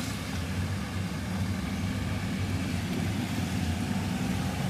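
Steady in-cabin running noise of a Mahindra Thar on a wet highway: a constant low engine and tyre hum.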